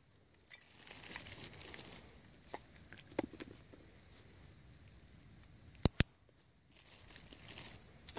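A dog-training clicker clicks twice in quick succession about six seconds in, marking the springer spaniel's freeze at the scent article. Around it come stretches of hissy snuffling and rustling from the dog's nose working through the grass and fallen leaves.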